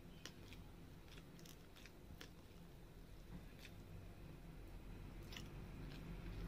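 Quiet, scattered soft wet clicks and squishes of cooked rice being mixed with fish gravy by hand on a steel plate, along with chewing.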